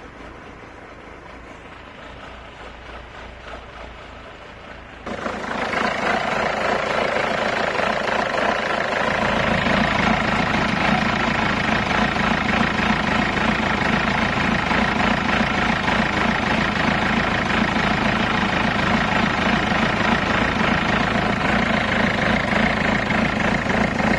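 Peugeot HDi 16-valve turbodiesel engine idling steadily, first heard more quietly at the tailpipe, then much louder and closer from about five seconds in, from the open engine bay. The engine idles with the shaking and vibration the owner reports along with black exhaust smoke in the morning.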